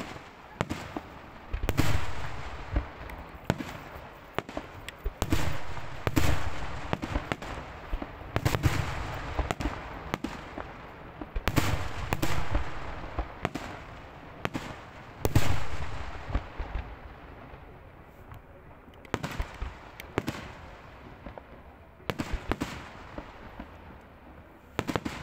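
Aerial fireworks display: shells bursting in quick succession, with a deep boom every second or two and crackling in between. The booms thin out over the last several seconds, leaving scattered sharp bangs.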